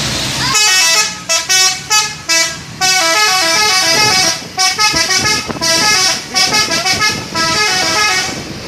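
Bus telolet horn playing its melody: a quick run of short horn notes, several tones sounding together and stepping up and down in pitch, starting about half a second in and stopping near the end.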